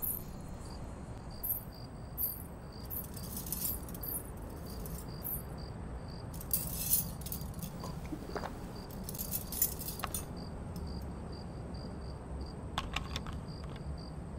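Insect chirping in a quick, even rhythm, with a few brief bouts of light metallic jingling.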